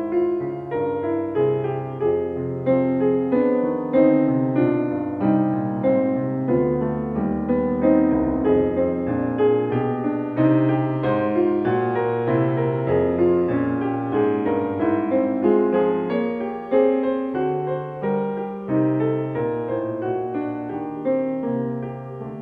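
Piano music: a steady flow of struck notes, easing off slightly near the end.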